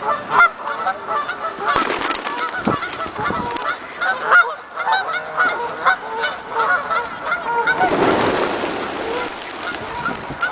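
A flock of water birds calling continuously, many short overlapping calls at once, as food is thrown to them. A rushing noise rises about eight seconds in and fades a second or so later.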